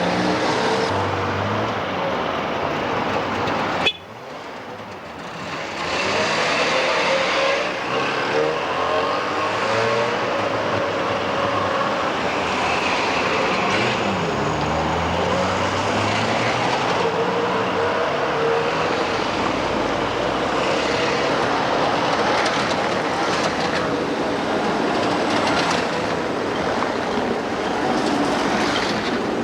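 Street traffic with cars running and passing. The sound drops away abruptly about four seconds in and builds back over the next two seconds.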